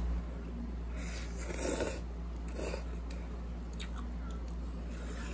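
A person eating noodles close to the microphone: chewing, with two short louder bursts about one and two and a half seconds in. A low steady hum runs underneath.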